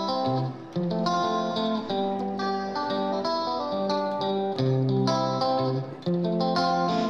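Background music: a plucked guitar melody with a steady beat.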